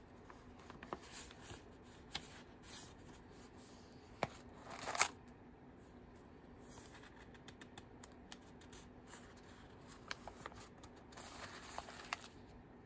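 Spiral-bound sketchbook pages being turned and handled: soft paper rustling with scattered light clicks and taps. The loudest rustle comes about five seconds in, and another stretch of rustling comes near the end.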